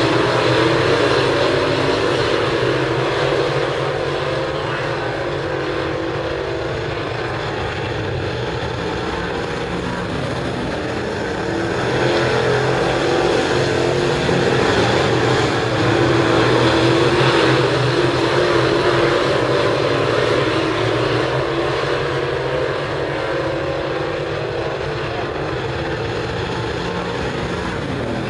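Dirt late model race cars' V8 engines running hard around a clay oval: a continuous engine drone that grows louder from about twelve to eighteen seconds in as the cars come past, then eases off.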